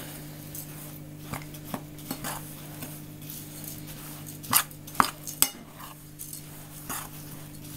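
Metal spoon stirring dry rolled oats and flour in a bowl: a soft scraping, with scattered clinks of the spoon against the bowl, three of them sharp and loud about four and a half to five and a half seconds in.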